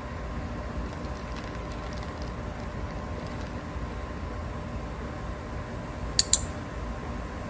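Dog-training clicker giving a quick, sharp double click about six seconds in, marking the moment the dog looks away from the forbidden treat. A steady low background rumble runs underneath.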